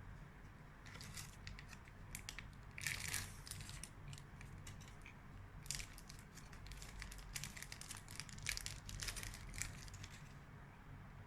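A chocolate bonbon's wrapper crinkling and crackling in irregular bursts as it is handled and unwrapped close to the microphone.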